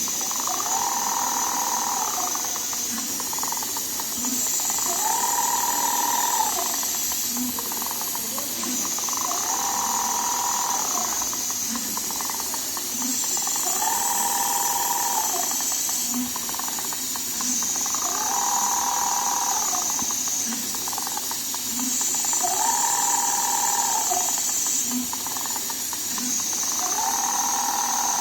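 Rotary-head leather sewing machine test-running in repeated cycles: a motor whine that rises and falls about every four seconds, over a steady hiss and soft regular pulses.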